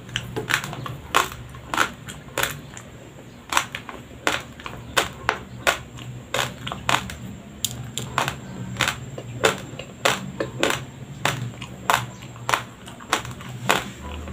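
Close-up chewing of a mouthful of raw, uncooked Doña Elena white rice: hard grains crunching and cracking between the teeth, about two crunches a second with a short pause about three seconds in.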